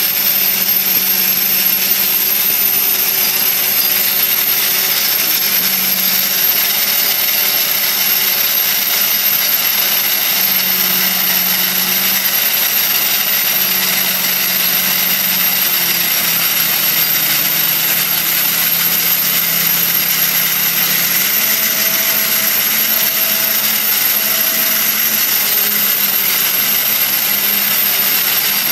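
Dry-ice blasting gun firing a continuous jet of compressed air and dry-ice pellets through a flat nozzle, stripping synthetic resin paint from wood: a loud, steady hiss. A faint low hum underneath shifts in pitch now and then.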